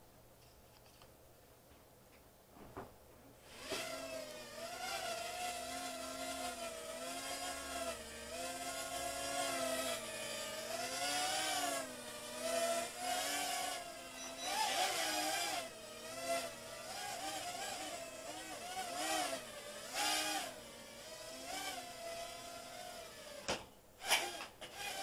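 Mini quadcopter's small electric motors whining, the pitch rising and falling as the throttle changes, starting about three and a half seconds in. A couple of sharp knocks near the end.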